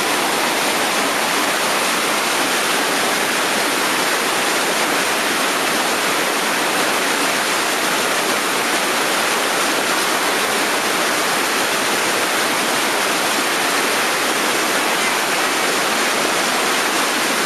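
Whitewater river rapids rushing and churning in a steady, loud, unbroken noise of moving water.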